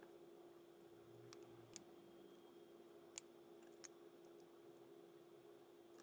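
Sharp, short clicks of a Hogue Deka folding knife's blade and crossbar lock being worked by hand, four of them, the loudest about three seconds in, over a faint steady hum.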